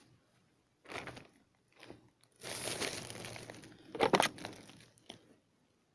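Cardboard being crumpled and torn, in several separate bursts of crunching, the longest lasting about a second.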